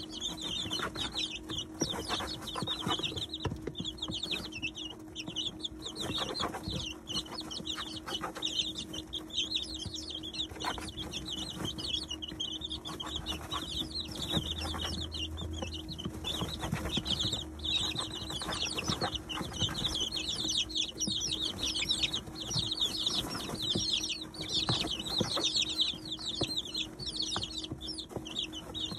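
A brood of 19-day-old chicks peeping constantly, many short high chirps overlapping, while they peck at feed, with scattered light ticks from beaks on the feeder and bedding. A steady low hum runs underneath.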